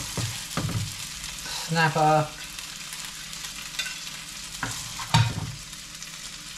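Fish fillets sizzling in a frying pan, with a slotted spatula scraping and knocking against the pan and plate as the fillets are lifted out. There are a few sharp knocks, near the start and again about two-thirds through.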